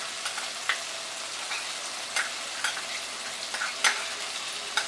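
Mustard oil sizzling steadily in a non-stick kadai with cumin seeds, bay leaves, dry chilli and chopped tomato frying in it. Sharp crackles pop out of the hiss roughly once a second.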